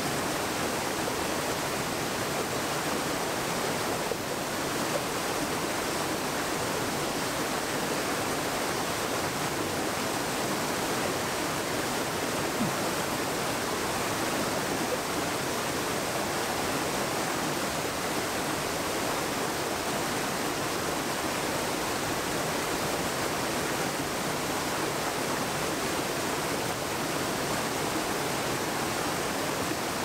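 Flowing stream: a steady, even rush of water that holds the same level throughout.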